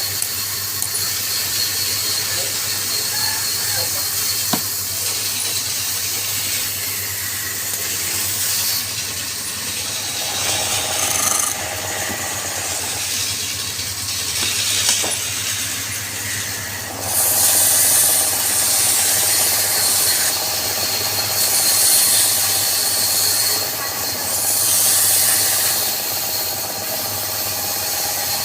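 Wood lathe running with a steady motor hum while a turning tool cuts the spinning wood. The hiss of the cut swells and fades in several passes, louder in the second half.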